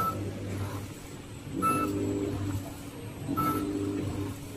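Horizontal screw (auger) packaging machine running through its bagging cycle, which repeats about every 1.7 seconds, three times here. Each cycle is a short high tone followed by a motor hum of under a second, over a steady low hum.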